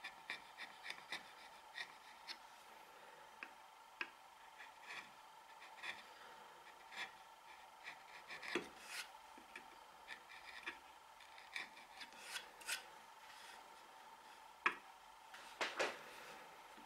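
Short, irregular scraping strokes of a slim steel hand tool on the wooden wedge of a coffin smoother, shaving the spliced repair toward its final taper. A few strokes near the end are louder.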